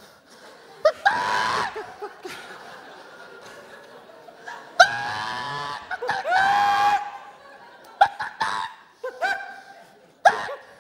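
High-pitched laughing and squealing vocal bursts, each with a sliding pitch: three longer ones of about a second each, then several short ones near the end, with pauses between.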